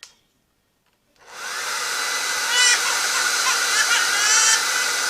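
Near silence, then about a second in a hair dryer switches on and rises to a steady blowing hiss with a steady whine in it. A baby's short high cries come over it.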